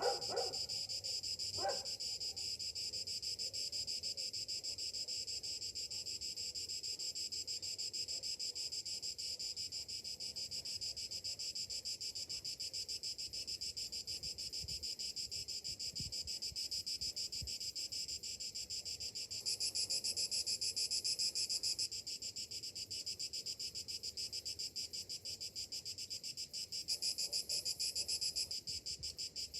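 Summer cicadas buzzing steadily in a dense chorus of rapid pulses. The chorus swells louder and higher for about two seconds around twenty seconds in and again near the end, and a few brief lower sounds come in the first two seconds.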